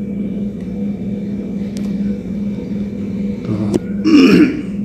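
A steady low electrical hum, with a faint click about three and a half seconds in and a short throat noise from a man just after four seconds.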